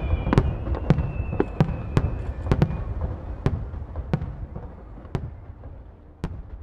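Aerial fireworks shells bursting in a rapid series of sharp bangs over a steady low rumble. The bangs come thick in the first half, then thin out and grow fainter over the last few seconds.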